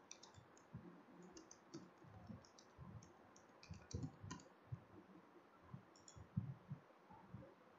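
Faint computer keyboard typing, a run of short, irregular key clicks, mixed with mouse clicks.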